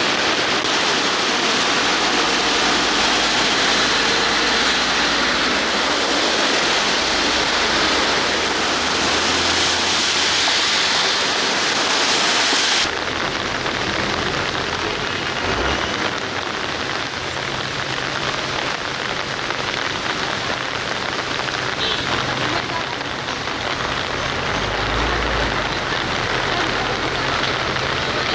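Heavy rain and running floodwater, a loud steady rushing hiss. About 13 seconds in the sound changes abruptly and loses its highest hiss.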